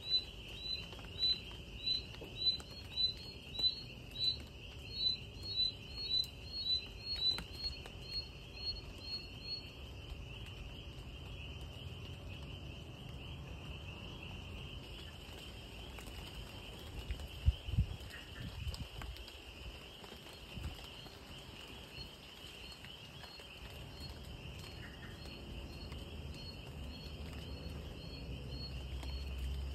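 Night outdoor ambience: a steady, high-pitched insect chorus with light rain pattering. A repeated chirping call, about three every two seconds, runs for the first third and returns faintly near the end. A few low thumps come a little past halfway.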